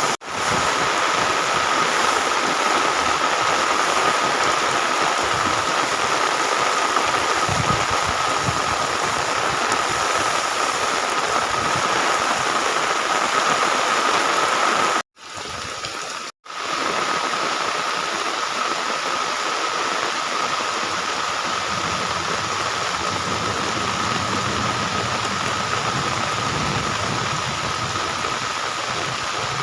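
Heavy monsoon rain pouring down steadily. The sound cuts out briefly twice about halfway through, with a quieter stretch between the two cuts.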